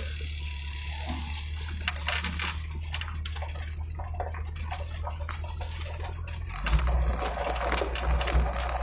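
Vehicle engine running with a steady low hum that grows louder about two-thirds of the way through, with faint scattered ticks over it.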